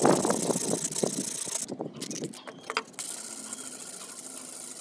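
Hand sanding of a wooden knife handle: rasping back-and-forth sandpaper strokes for about the first two seconds, then quieter.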